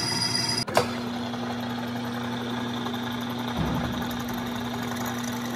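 Electric motor of a metalworking machine running steadily with a low hum. There is a sharp click about a second in.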